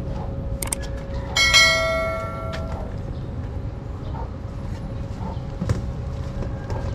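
A click, then a single bright bell ding about a second and a half in that rings out and fades over about a second and a half: the notification-bell sound effect of a subscribe-button animation.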